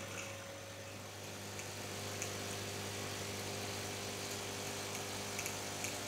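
The vibratory pump of a De'Longhi Motivo pump espresso machine running with a steady hum, pushing rinse water through the system and out of the frother while it is being descaled, with a few faint ticks.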